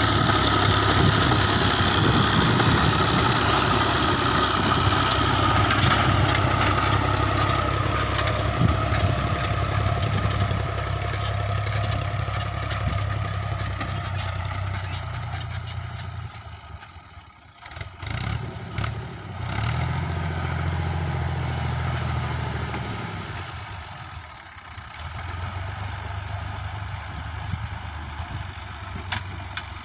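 New Holland Ghazi 65 hp tractor's diesel engine running steadily. It is loud at first, drops away sharply about halfway through, swells again for a few seconds, then dips and settles at a lower level.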